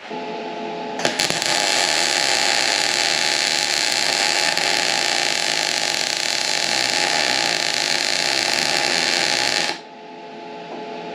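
MIG welding arc from a Kemppi MinarcMig Evo 170 welder, plug-welding a new frame head onto a VW Beetle chassis. It runs as one steady hiss for about nine seconds, starting a second in and stopping abruptly near the end. A low steady hum runs underneath throughout.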